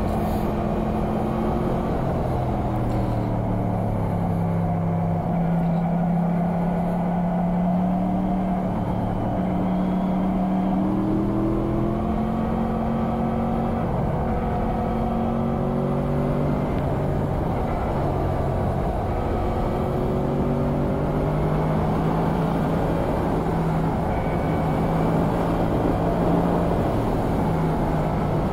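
Motorcycle engine running while riding, its note rising and falling with the throttle over a steady low rush of noise.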